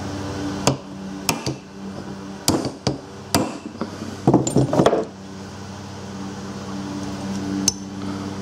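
Hammer taps on a steel driver tool, knocking a C-clip retaining ring down the starter-drive shaft of a Briggs & Stratton starter motor into its groove. The metal-on-metal taps come irregularly through the first five seconds, some in quick clusters, with one more near the end.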